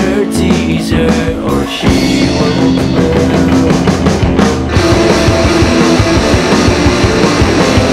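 Indie rock band recording playing an instrumental passage with electric guitar and drum kit, the sound getting fuller about five seconds in.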